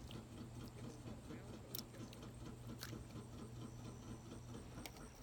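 Abu Garcia Black Max baitcasting reel being wound in: faint soft whirring with a few sharp clicks, over a low steady hum.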